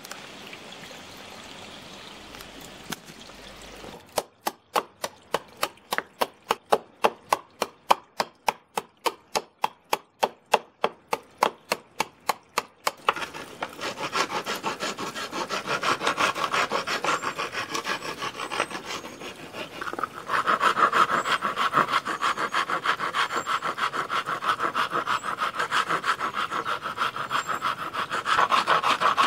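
Hand file rasping across the end grain of a hollowed gum-wood ring. After a few quiet seconds come short, sharp strokes at about four a second, then from about halfway a continuous fast rasping that gets louder.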